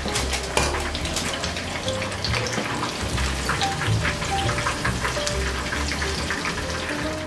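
Battered shrimp deep-frying in hot oil: a dense, steady crackle and sizzle, with light background music.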